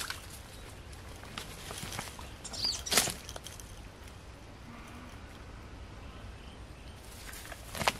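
A freshly landed small rohu being handled on the line among reeds: one sharp rustling knock about three seconds in, and light rustles and knocks again near the end, over quiet outdoor background with a brief bird chirp.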